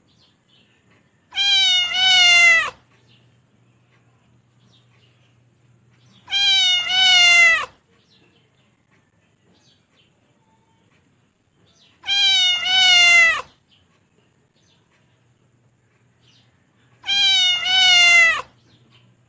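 A domestic cat meowing four times, about five seconds apart. Each call is a long, wavering meow of about a second and a half with a brief break in the middle, and all four are alike.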